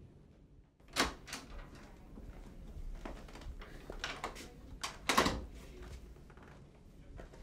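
Wooden office door being handled: two sharp clicks about a second in, softer knocks and rattles, then a louder thud just after five seconds.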